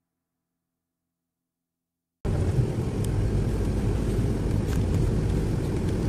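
Steady low rumble of engine and road noise from inside a moving bus. It starts abruptly about two seconds in, after near silence, and holds even.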